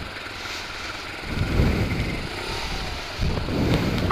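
Motorcycle engine running as the bike rolls slowly, with wind rumbling on the microphone and swelling twice.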